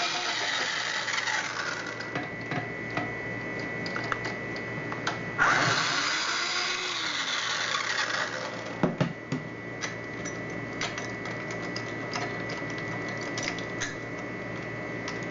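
Small motor of a cordless drill/driver run in two spells of a few seconds each, backing out the knob lockset's mounting screws, followed by light metal clicks as the parts are handled.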